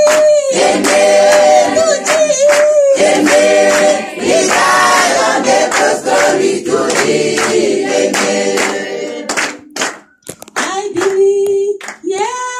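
Two women singing a gospel song together into handheld microphones, amplified through a PA, with hand claps keeping time. The singing breaks off briefly about ten seconds in, then comes back on a long held note.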